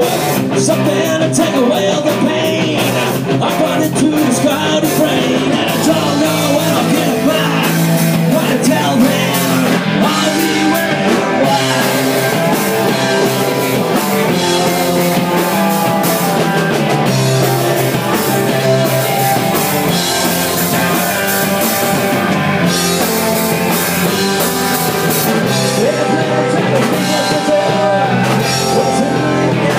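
Live rock band playing loud and without a break: electric guitars, bass guitar and drum kit.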